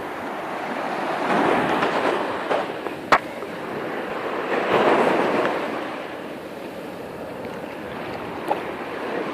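Sea waves washing onto the shore, the surge swelling twice, with a sharp click about three seconds in.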